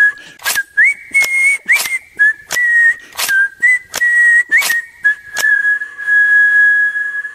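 Outro jingle: a whistled tune over sharp percussive hits about two or three a second, ending on one long held whistled note that fades out.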